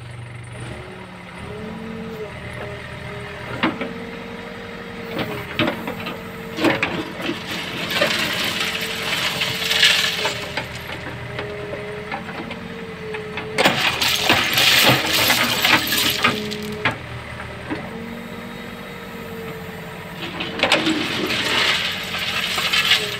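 Case backhoe loader's diesel engine running under hydraulic load, its pitch stepping up and down as the backhoe arm is worked. Over it come several bursts of crushed-stone rail ballast clattering and rattling in and out of the bucket.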